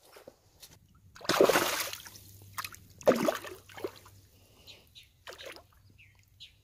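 Splashing in shallow water at the bank as a gut-hooked bass is let go. A loud splash comes about a second in, a second one with a sudden start follows about two seconds later, and a few smaller splashes come after.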